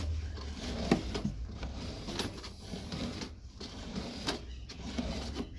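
Drain inspection camera's push rod being fed into the pipe: irregular rubbing, rattling and clicks over a low steady hum.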